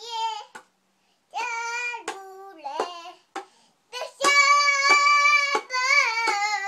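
A toddler singing in a high voice while slapping a small hand drum with her palm, the strikes falling irregularly between and under her sung notes. About four seconds in she holds one long note.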